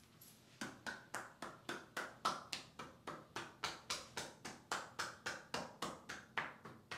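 Rhythmic hand percussion massage on the body: even, cupped or flat-handed pats at about four a second, starting about half a second in.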